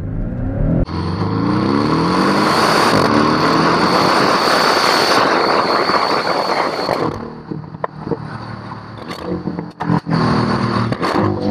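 Porsche 718 Cayman GTS's 2.5-litre turbocharged flat-four through its sports exhaust, accelerating hard with the revs climbing. About seven seconds in the throttle lifts, with a few sharp pops, and near the end the revs climb again.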